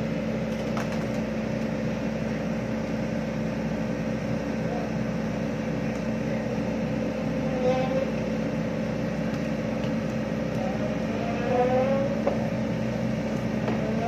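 Sumitomo tracked asphalt paver's diesel engine running with a steady, even hum as the paver crawls down a lowboy trailer's ramp.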